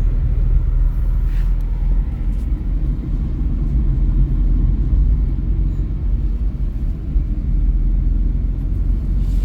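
Steady low rumble of a vehicle driving along a road, with engine and road noise.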